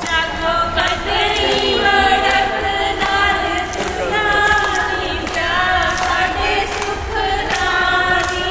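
A group of voices singing long held notes together, choir-like, the pitches shifting slowly from note to note.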